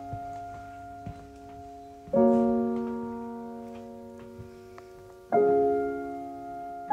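Background music: slow piano chords, a new chord struck about every three seconds and left to ring and fade away.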